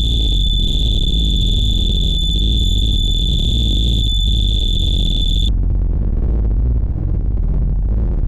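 Loud, dense electronic noise heavy in the bass, harsh-noise-wall style, with a steady piercing high tone on top like an alarm that cuts off suddenly about five and a half seconds in; the deep noise carries on unchanged.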